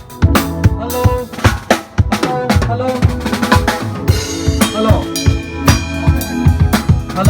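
Drum kit played in a steady groove: kick drum, snare and rimshots struck in quick succession, with cymbals ringing from about four seconds in. Sustained pitched notes from other instruments sound underneath.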